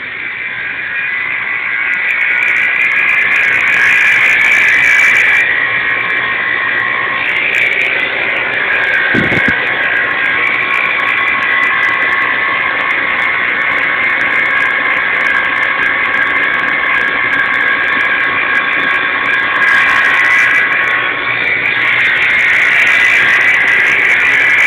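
A steady high-pitched whine from a 1999 Audi A6, the car's weird noise, building over the first few seconds and then holding.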